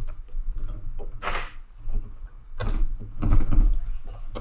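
Plastic and metal clicks, knocks and a short scraping rub from a Riddell SpeedFlex football helmet and its visor clip hardware being handled while the quick-release clip is worked into place. The heaviest knocks come about three seconds in.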